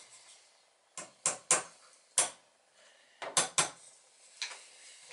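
Small metal tools being handled and set down on a wooden workbench: several sharp clicks and knocks at irregular intervals.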